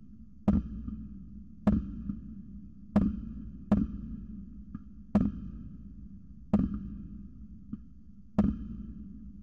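Firecrackers going off: seven loud, sharp bangs about one to two seconds apart, each with a short echoing tail, and a few fainter pops between them, over a steady low hum.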